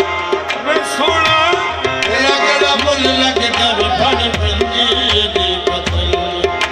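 Qawwali music: harmonium melody over a tabla rhythm.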